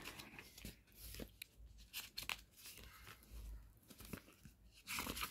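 Paperback book pages being opened and turned by hand: faint, scattered papery rustles and crackles, with a louder rustle near the end.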